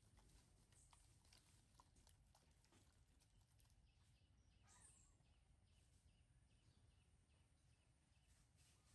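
Near silence: faint background noise with a few soft scattered clicks.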